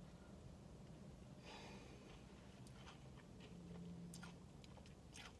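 Near silence: faint mouth sounds of a person eating a spoonful of ice cream, with a few small, soft clicks.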